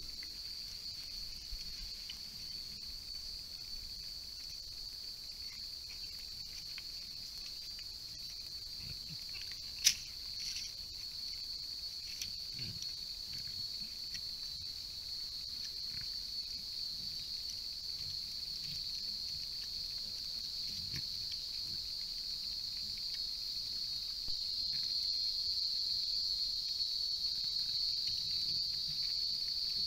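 Steady high-pitched insect chorus, such as cicadas or crickets, that swells a little near the end, with one sharp click about ten seconds in.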